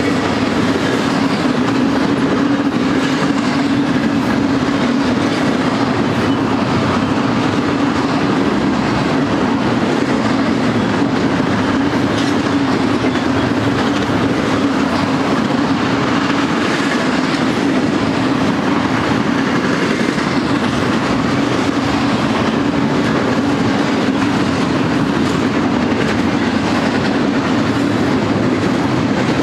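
Double-stack intermodal freight train's well cars loaded with containers rolling past: a steady, loud rumble of steel wheels on rail with a constant low hum underneath.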